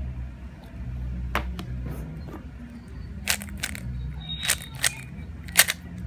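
Plastic QiYi speedcubes being twisted by hand: a scattered series of sharp clicks and clacks as the layers turn, thickest in the second half.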